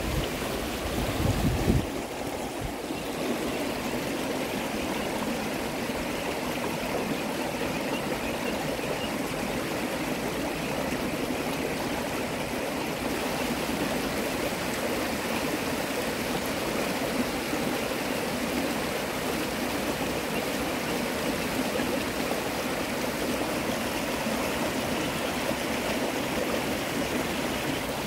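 Creek water rushing steadily over rocks in shallow rapids. A low rumble sits under it for the first two seconds.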